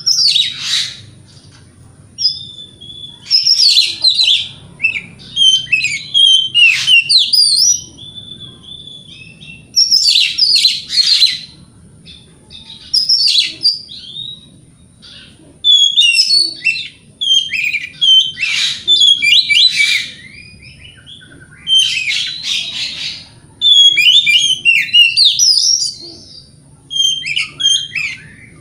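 Oriental magpie-robin (kacer) singing loudly in full song: rapid, varied whistles and chirps in bouts of one to three seconds with short pauses between them.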